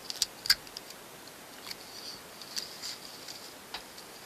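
Small pieces of clear tape being torn off a desk dispenser and pressed down, with crinkling of carbon paper strips, giving a few sharp clicks (the loudest about half a second in) and scattered softer ticks.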